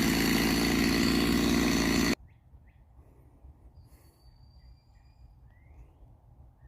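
Two-stroke chainsaw running steadily at high speed, then cutting off abruptly about two seconds in. After it stops, birds chirp faintly with short rising calls.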